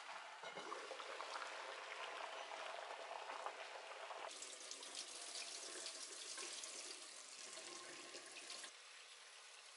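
Water sounds: a clay pot of azuki beans bubbling at the boil for about four seconds, then tap water running into a pot of beans in a stainless steel sink as they are rinsed, with a hissier splash that stops shortly before the end.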